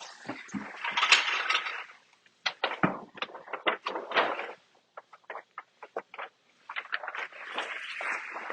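Paper backing being peeled off a large vinyl wall decal and the sheet handled: repeated bursts of crinkling and rustling with sharp crackles.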